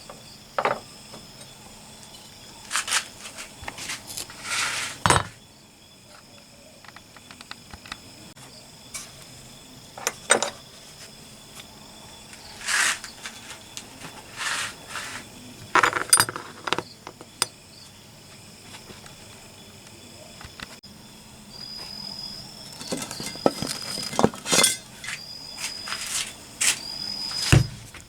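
Scattered clinks, taps and scrapes of small metal parts being handled, over a faint steady high insect drone. Near the end the insect sings in a run of short repeated chirps.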